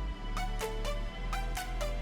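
Electronic background music with a steady beat, a deep bass line and a synth melody whose notes slide downward.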